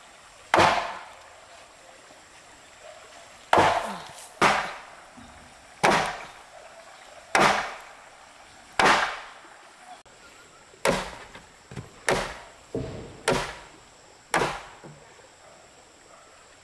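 Hand tool chopping into timber: about a dozen sharp blows at uneven intervals, coming closer together near the end.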